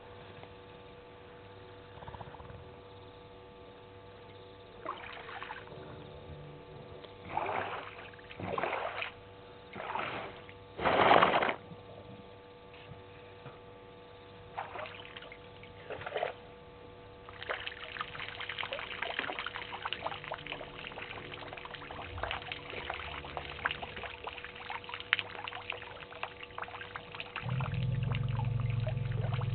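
African elephant drinking at a waterhole: several short splashing bursts as its trunk works in the water, then steady trickling and dripping of water. Near the end comes a louder, lower gush as it pours a trunkful of water into its mouth.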